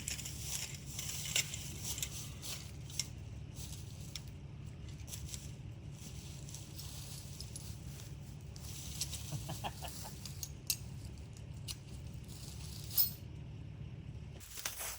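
A steady low hum with scattered light clicks and clinks over it, cutting off abruptly near the end.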